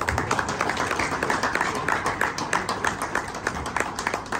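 People applauding: many overlapping hand claps.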